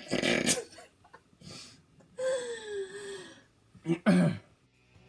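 Wordless voice sounds from two people laughing and fooling about: a loud breathy burst at the start, a long vocal sound sliding down in pitch in the middle, and a short low throaty sound near the end.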